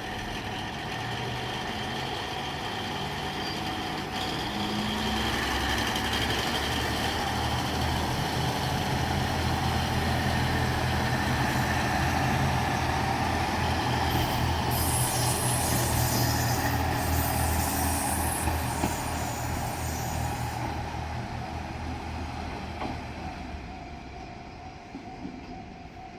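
Two-car JR Shikoku KiHa 47 / KiHa 40 diesel railcar set passing, its diesel engines and wheels on the rails growing louder, peaking past the middle and then fading away. A level-crossing warning bell rings throughout, and a hiss comes about two-thirds of the way through.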